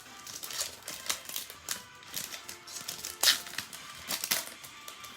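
Basketball trading cards being flipped through and handled: irregular sharp clicks and rustles of card stock, the loudest snap about three seconds in, over faint background music.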